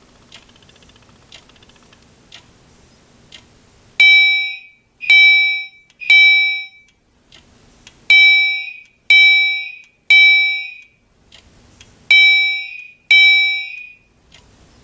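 Gentex Commander 3 fire alarm horns blasting in loud horn tones about a second apart, in groups of three with short pauses, then a pair near the end. The panel is coded for California code. In the first few seconds only faint ticks about once a second are heard.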